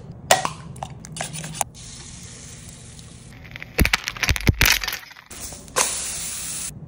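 Pan-cooking and handling noises: a few sharp clicks and knocks, then a dense run of heavy bumps and knocks through the middle, and about a second of steady hiss near the end.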